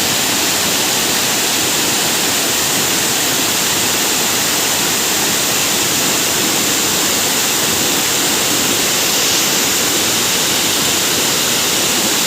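Tall, large waterfall pouring down: a loud, steady, unbroken rush of falling water.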